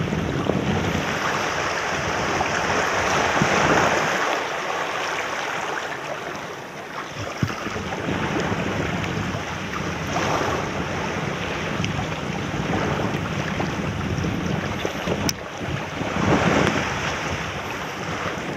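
Small waves washing and breaking around shoreline rocks, with wind on the microphone; the rush swells up twice, a few seconds in and again near the end. A single sharp click about fifteen seconds in.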